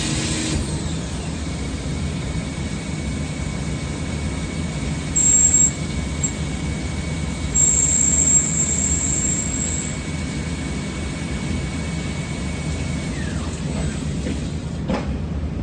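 Swiss-type CNC lathe running with its high-pressure coolant on: a steady rushing machine noise with a high whine that drops away near the end. Two short, very high-pitched whistles sound about 5 and 8 seconds in.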